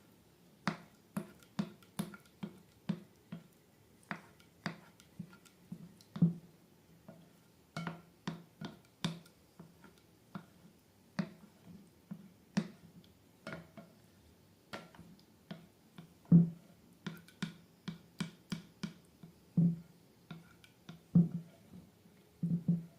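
Slime being pressed and worked by hand, giving an irregular run of short, sharp sticky pops and clicks, about two or three a second.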